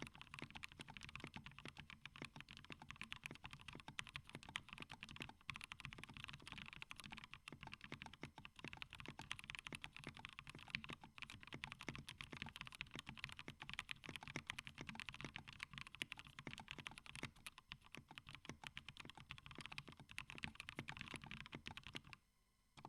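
Fast, continuous typing on a plateless 60% mechanical keyboard in a plastic case, with Gateron Yellow linear switches lubed with Krytox 105 and thick Dolch PBT keycaps. It gives a dense stream of keystroke clacks that stops shortly before the end.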